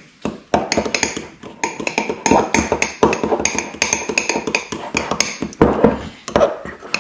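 Fork clinking and scraping against the inside of a mug in quick, uneven strokes while mixing cake batter.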